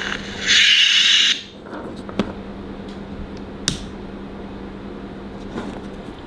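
A homemade lightsaber sound card's speaker plays a short hissing sound effect about half a second in, over a steady low hum that stops near the end. A few sharp handling clicks follow.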